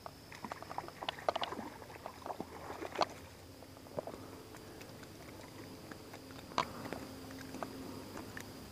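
Hands handling fishing line and a caught brown bullhead: scattered light clicks, taps and rustles, with sharper clicks about three seconds in and again past six seconds. A faint steady high tone runs underneath.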